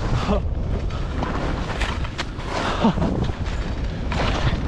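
Steady wind noise on a GoPro's microphone as a skier moves fast through powder, with the skis hissing through the snow in short surges on several turns.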